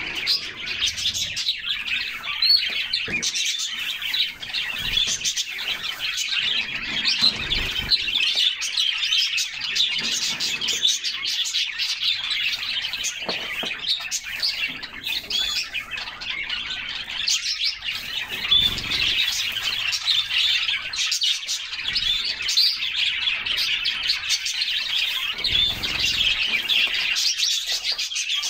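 Several canaries chirping and singing together without a break, a dense overlapping mix of high, quick chirps and trills. A few soft low thuds sound under the song.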